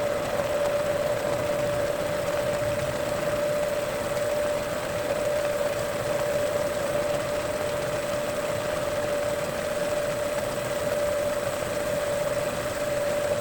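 Metal lathe running steadily with a constant mid-pitched whine over an even machining hiss while a chamfer is cut on a 416 stainless steel part.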